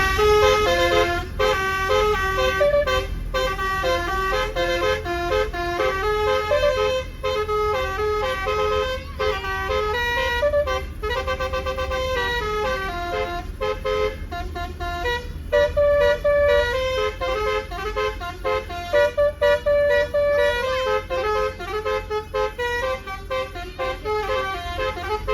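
Bus telolet horn of the Basuri V3 kind playing a long melody of quick stepped horn notes, over the low rumble of the bus.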